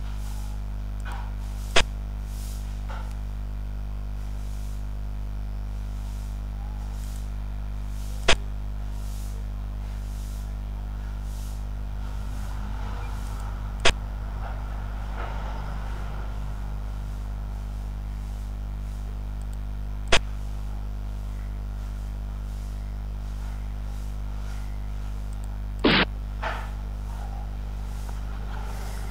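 Five sharp clicks several seconds apart, each a Xiangqi piece being placed on the replayed game board, over a steady low drone. The last click is a little longer than the others.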